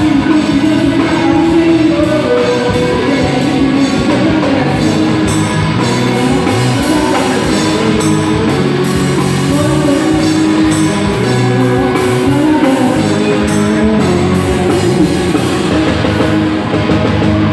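A live rock-style worship band playing: drum kit, electric guitars, bass and keyboard, with singing over them.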